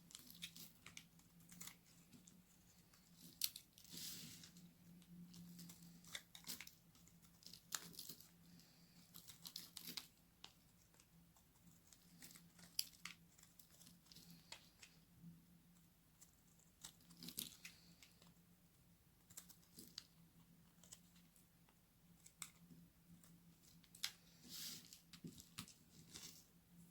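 Very dry soap being cut: faint, irregular crisp crunches and cracks, with a few sharper snaps standing out.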